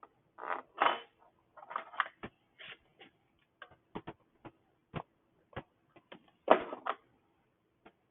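Hand work on small-engine parts: irregular clicks, taps and short clatters of metal and plastic pieces being handled and set down, with no steady rhythm and the loudest clatter about six and a half seconds in.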